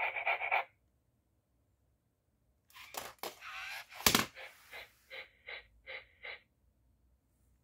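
Robot toy dog's built-in dog sound effect played through its small speaker: a sound that cuts off under a second in, then after a pause a rough stretch with one sharp knock, running into a string of short rhythmic puffs about three a second.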